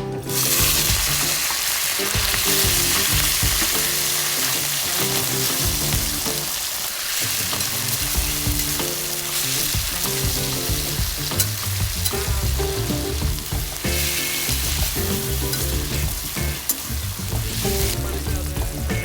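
Food sizzling in hot oil in a pan, starting suddenly as it goes into the pan and stirred as it fries. Background music plays underneath.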